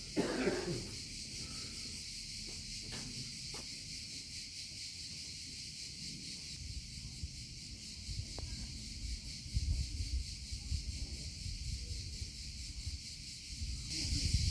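A steady, high-pitched chirring chorus of insects runs throughout. Low irregular knocks and rumbles come in during the second half.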